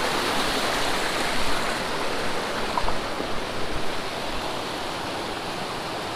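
Small cascades on a rocky mountain stream, water pouring over and between boulders in a steady, even rush.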